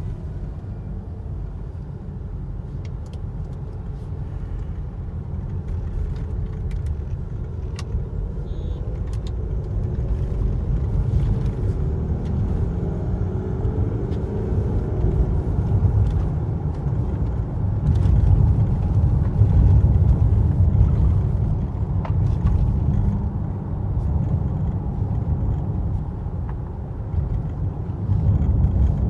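Mercedes ML 250 on the move, heard from inside the cabin: a steady low road rumble that grows louder partway through, with scattered short knocks and rattles from the front suspension. The mechanic puts the noise down to worn shock absorbers and cut suspension-arm bushes.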